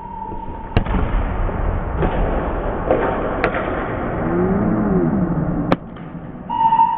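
A futsal ball kicked hard in an echoing gymnasium: a sharp thud just under a second in, then reverberant gym noise with a few more knocks. Around four seconds in, a player's voice gives a short call that rises and falls in pitch.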